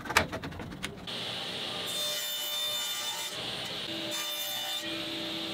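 A few handling knocks, then from about a second in a table saw running steadily as its blade cuts a sheet of acrylic plastic (plexiglass), with two stretches of sharper hiss as the blade bites.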